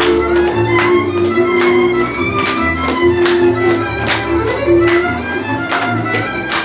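Hungarian folk dance music: a fiddle plays the melody over a bass and a steady, evenly pulsed rhythmic accompaniment.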